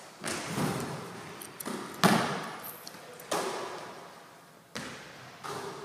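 A basketball hitting hard surfaces about five times at irregular spacing, each sharp thud trailing off in a long echo around the gym; the loudest comes about two seconds in.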